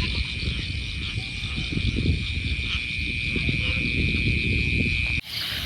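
Crickets trilling in one steady, unbroken high note over an uneven low rumble of handling and movement noise; near the end the trill cuts off suddenly and a slightly higher one carries on.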